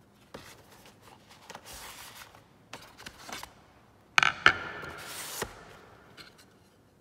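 Cardboard box being opened and a table tennis blade lifted out and set down: scraping and rustling of card, a few small clicks, and a louder, squeaky scrape about four seconds in.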